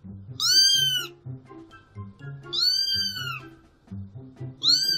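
Kitten meowing: three high-pitched meows, each rising then falling in pitch, about two seconds apart, over soft background music.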